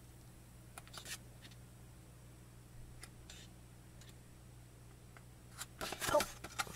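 Glossy paper pages of an album photo book being turned by hand: a few soft rustles and ticks, then a louder flurry of rustling about six seconds in as several pages flip over together.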